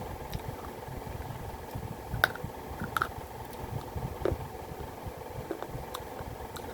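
A person chewing and crunching pieces of baked clay pot (matki), with a few sharp crunches standing out a couple of seconds in.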